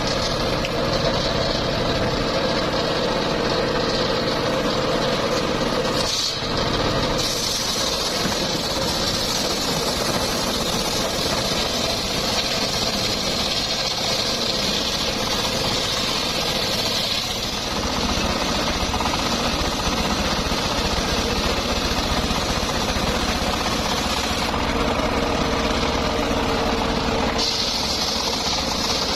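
Homemade circular sawmill running steadily, its blade cutting teak timber; the pitch and strength of the cutting noise shift a few times as the cut goes on.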